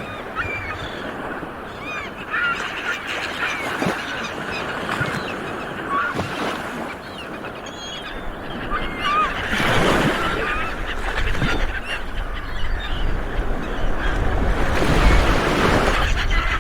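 Sea waves washing ashore, with two bigger surges about ten and fifteen seconds in, while birds call over them in many short calls.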